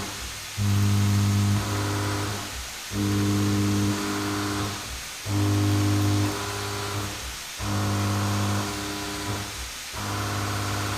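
Background music: sustained synth tones in a slow, regular repeating pattern, changing about once a second.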